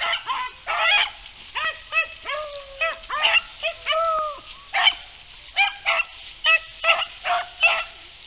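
A pack of rabbit hounds baying on a rabbit's trail. A steady run of bawls comes at about two a second, some short and some drawn out, with several dogs calling over each other.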